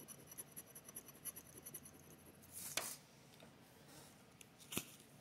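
Faint handling of a scratched-off lottery ticket card on a table: a short paper rustle about halfway through and a light tap near the end.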